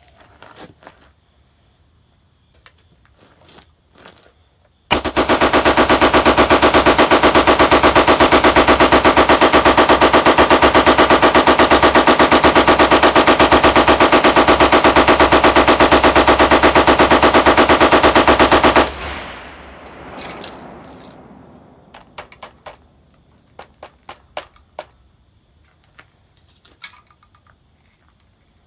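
.303 Vickers water-cooled machine gun firing one long unbroken burst of about fourteen seconds. It starts about five seconds in and stops before the middle, with the shots coming in a steady, rapid, even rhythm as the gun feeds from an old tabbed belt without a stoppage. Before and after the burst there are only small clicks and rattles of the gun and belt being handled.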